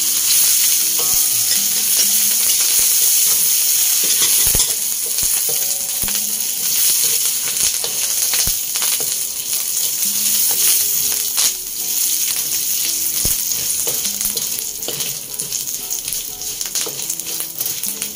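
Chopped garlic, ginger, whole spices and curry leaves sizzling in hot oil in a metal wok, stir-fried with a wooden spatula that scrapes and taps against the pan. The sizzle eases off slightly near the end.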